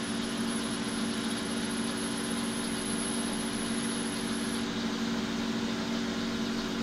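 Metal lathe running steadily, its motor and gearing giving an even hum at one pitch.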